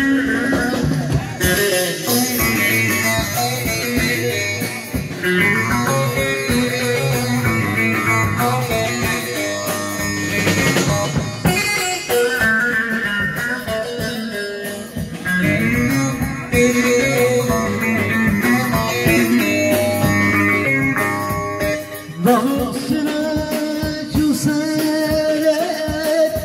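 Halay folk dance music played loud over outdoor PA loudspeakers, led by an amplified plucked-string melody over a steady dance rhythm.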